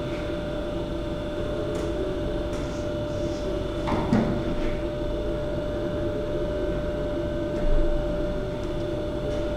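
Steady machine hum with a constant tone, broken by a brief knock about four seconds in and another near the end.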